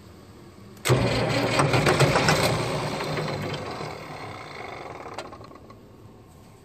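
International 706 tractor's diesel engine being cranked over on the starter after its injector lines were bled of air, starting suddenly about a second in and fading out after about five seconds without settling into a steady run.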